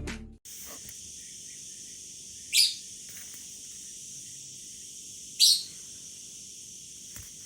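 Two short, high bird chirps about three seconds apart over a steady high-pitched outdoor hiss.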